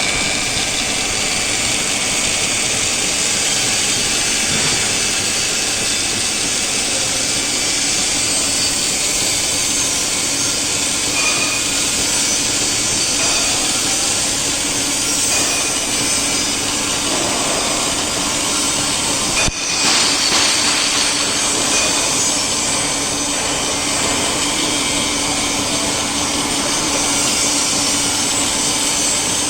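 Portable keyway milling machine running steadily, its cutter milling metal, with a faint steady hum under the cutting noise. A brief click about two-thirds of the way through.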